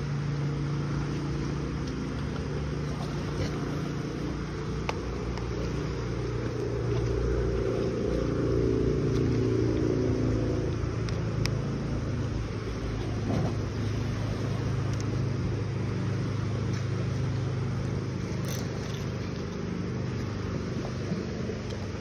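A motor engine running steadily with a low hum. It swells louder about a third of the way in, then eases off as it passes.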